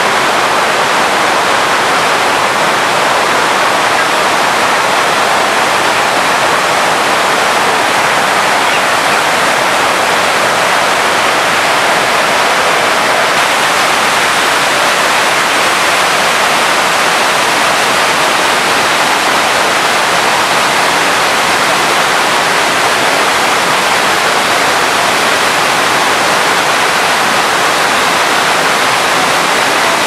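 The Rhine Falls, a large river waterfall, rushing and crashing: a loud, steady wash of white-water noise with no let-up.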